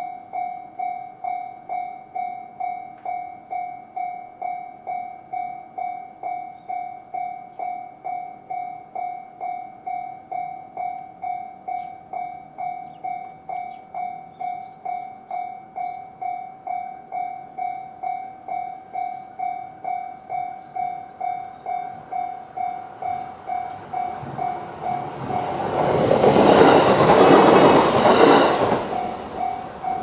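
Japanese level-crossing electronic warning bell in the JR standard tone, ringing steadily at about two strokes a second. From about 24 seconds in, an SR1-series electric train runs past, swelling to cover the bell, which comes through again near the end.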